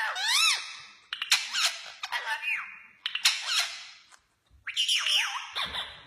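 Indian ringneck parakeets chattering in a run of high, squeaky calls, about one a second, each sweeping up and down in pitch, with a short pause a little past the middle.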